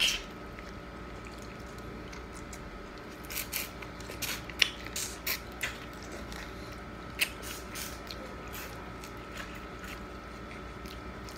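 Shell-on spicy garlic butter shrimp being peeled and eaten by hand: shells crackling, lips smacking and fingers being sucked, in scattered short clicks that bunch up from about three seconds in.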